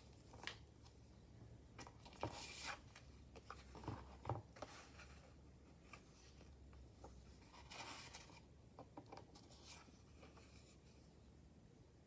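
Pages of a handmade paper junk journal being turned and handled: soft paper rustling and crinkling, with a few brief knocks, busiest about two to four seconds in and again around eight seconds.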